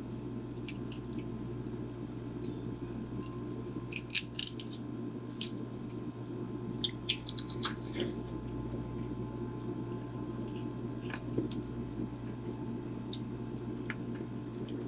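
Scattered small clicks and crackles of balut (boiled duck egg) shells being peeled and eaten, over a steady low hum.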